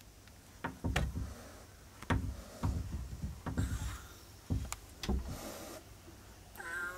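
Frightened black kitten hissing and spitting defensively at a person close by, a string of sudden sharp spits, some trailing into a hiss, with a short wavering cry near the end.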